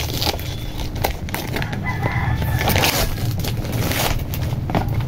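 Silver metallic gift wrap crinkling and tearing as it is pulled off a box, with a rooster crowing in the background about two seconds in.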